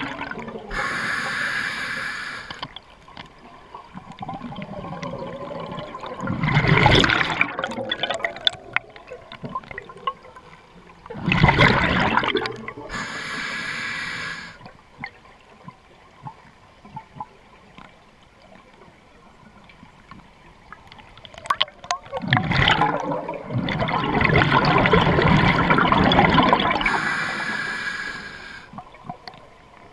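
Scuba diver breathing through a regulator underwater: three long hissing inhalations, and bursts of exhaled bubbles gurgling past the microphone, the longest lasting several seconds.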